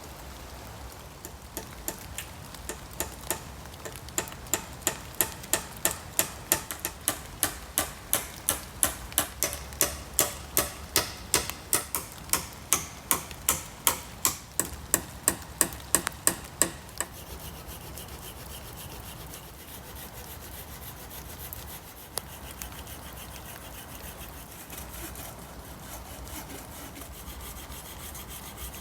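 Hand saw cutting through the top of a wooden branch pole, with quick, even strokes about three a second for some fifteen seconds, stopping about 17 seconds in.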